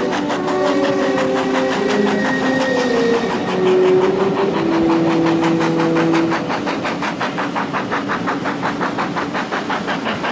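Steam locomotive of the Jacobite train running at speed, its chuffing a rapid, even beat of about five a second heard from an open carriage window. Over it, a slow sequence of held tones steps from one pitch to the next.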